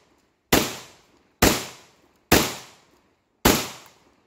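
Four shots from a Black Aces Tactical Pro Series S Max semi-automatic 12-gauge shotgun firing Remington Game Load birdshot, about one a second, each a sharp bang that fades over about half a second. The gun is cycling each round without a stoppage in its first string of fire out of the box.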